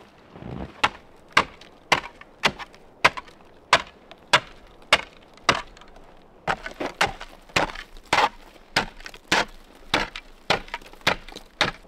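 Metal snow shovel chopping and scraping packed snow off a wooden platform, about two sharp strikes a second.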